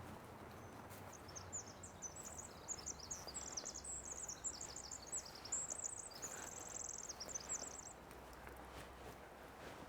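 A wren singing one long song of rapid, high, tumbling notes and trills, lasting about seven seconds.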